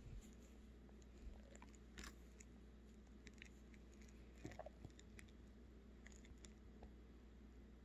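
Near silence: room tone with a few faint, scattered clicks and soft rustles while a dog is scratched by hand about the ears and chin.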